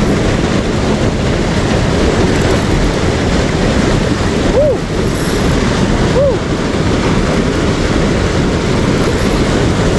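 Steady, loud rushing of muddy river water churning through a small rapid.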